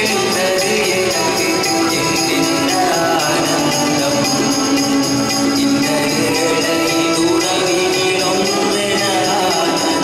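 Music with jingling percussion over sustained pitched tones, playing steadily without a break.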